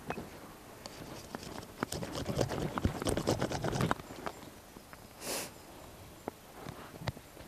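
Knife blade shaving and scraping along a split wooden stick, trimming it smooth: a run of short, irregular scraping strokes and clicks, busiest in the middle.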